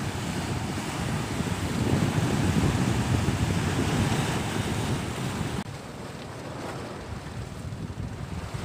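Sea waves breaking and washing over a rocky shelf, with wind rumbling on the microphone. The sound drops suddenly about two-thirds of the way through and stays quieter after.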